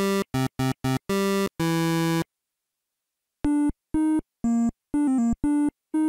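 Chiptune-style synthesizer jingle in short notes: a run of low notes, about a second of silence, then a phrase of higher, quick notes.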